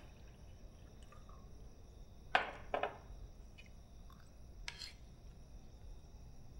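Tableware clinking during a meal: two sharp clinks of glass on the table about two seconds in, then lighter clicks of spoons on plates. A faint steady high-pitched ringing sits underneath.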